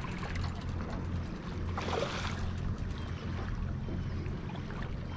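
Steady low hum under the sound of water and wind at the lake's edge, with one brief splashy rush about two seconds in.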